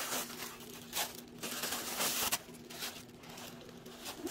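Tissue paper crinkling and rustling as a hand moves it about inside a handbag, in several bursts over the first couple of seconds, then quieter.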